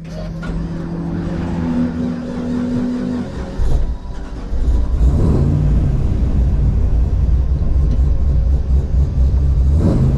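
1000-horsepower VF Commodore race car's engine with a full exhaust, heard from inside the car, running steadily and then louder under throttle from about four and a half seconds in as the car pulls away. The exhaust is loud enough to have read 97 dB on the track's noise meter, over the 95 dB limit.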